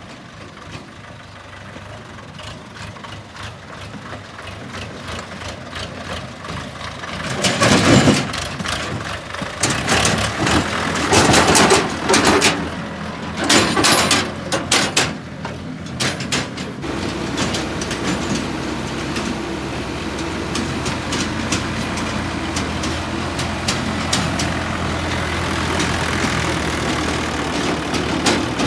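Heavy vehicle diesel engine running. It grows louder over the first several seconds, surges loudly a few times in the middle, then settles into a steady low running sound.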